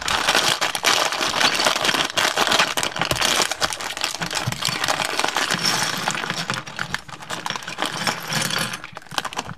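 A silver-lined plastic blind-box bag crinkling and tearing as hands open it, with small plastic model-kit parts clicking and rattling as they tumble out.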